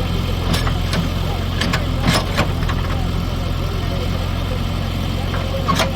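An engine running steadily with a low hum, with a handful of sharp clicks and knocks, mostly about two seconds in and one more near the end.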